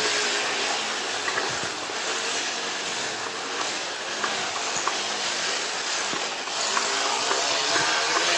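Plastic cup wedged against a bicycle's rear wheel, the spokes flicking it in quick succession to make a continuous rattling buzz. The buzz weakens a little in the middle and strengthens again near the end.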